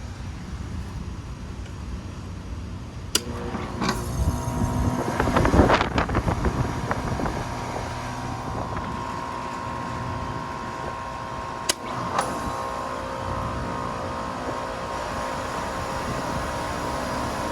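Two central air-conditioner condensing units with Copeland scroll compressors starting up one after the other. A sharp click about three seconds in is followed by a surge of noise as the compressor and fan come up to a steady hum; another click near twelve seconds brings the second unit in, adding further steady tones to the running hum.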